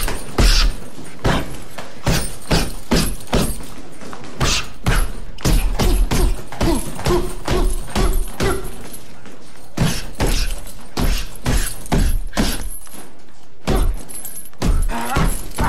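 Boxing gloves landing a rapid run of punches, each a short thud, about two a second, with a couple of brief pauses.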